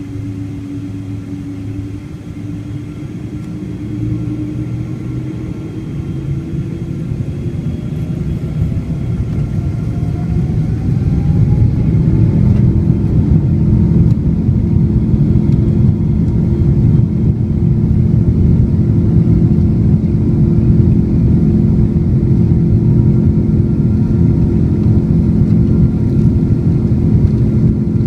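Boeing 777-200's twin Pratt & Whitney PW4000 turbofans spooling up to takeoff thrust. A rising whine and a swelling low rumble build over the first twelve seconds or so, then the sound holds steady and loud.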